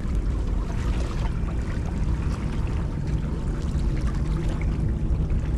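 Seawater sloshing and lapping among breakwater boulders: a steady watery wash over a continuous low rumble.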